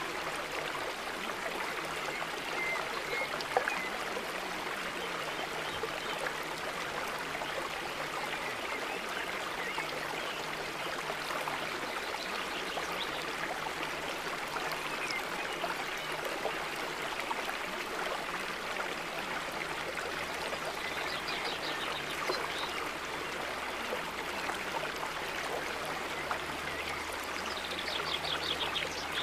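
Steady sound of running water, like a flowing stream, with a few faint high chirps about two-thirds of the way through and near the end.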